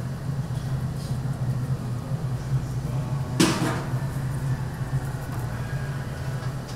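A steady low machine hum, with one short knock about three and a half seconds in.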